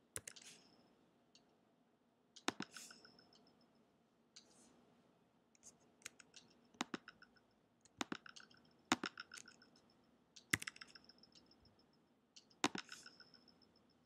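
Faint computer clicks and keystrokes in short clusters about every one to two seconds, some clicks with a brief high ring.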